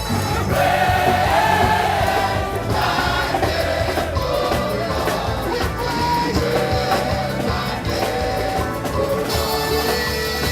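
Gospel choir singing with band accompaniment.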